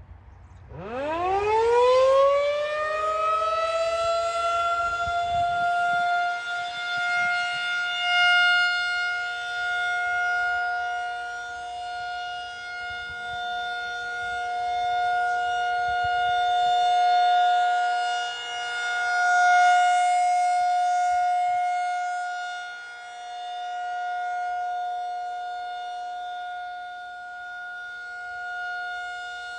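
Federal Signal 2001 rotating electromechanical tornado siren winding up from a low growl to a high pitch under a second in, then holding a steady, loud wail for its scheduled test. The wail swells and fades slowly as the siren turns.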